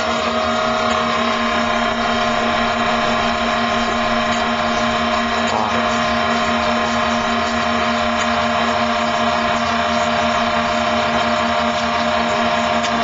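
Electric motors of a radio-controlled model tug running steadily in a bathtub: a constant whine of several steady tones over a hiss.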